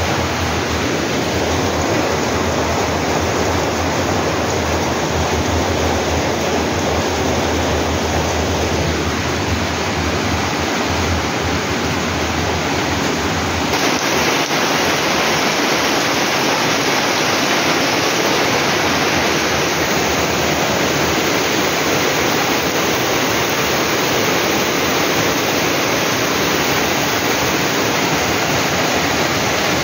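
Heavy rain falling, a steady, loud hiss of water that barely changes, its tone shifting slightly about halfway through.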